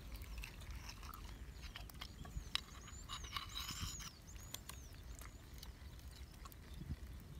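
Faint, scattered light clicks of a knife and bamboo stick working against a small shell as the meat is pried out. In the middle, a bird gives a series of short, high chirps over a low steady rumble.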